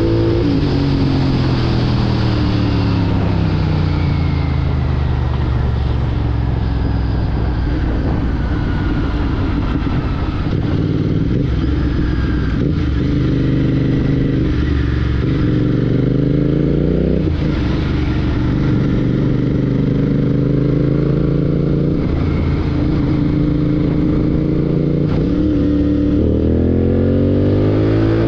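Royal Enfield Continental GT 650 parallel-twin engine running through a Red Rooster Performance aftermarket exhaust while riding. The revs drop over the first few seconds and then hold steady. They climb mid-way, dip sharply about 17 seconds in, and rise again near the end.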